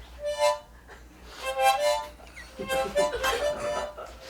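Harmonica held in the mouth, sounding short wavering chords three times as breath is forced through it. The breaths are involuntary gasps and groans from someone in pain who is trying to stay silent.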